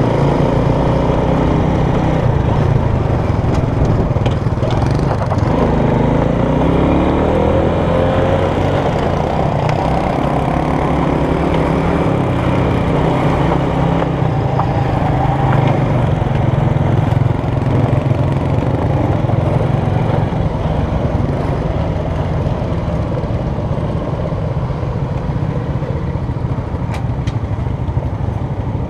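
Step-through motor scooter engine running while riding, mixed with wind and road noise. The engine note rises around six to eight seconds in, and the sound eases a little near the end as the scooter slows.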